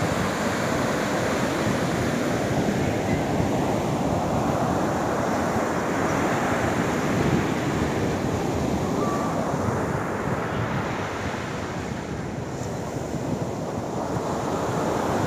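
Sea surf breaking and washing up a sandy beach in a steady rush, with wind blowing on the microphone.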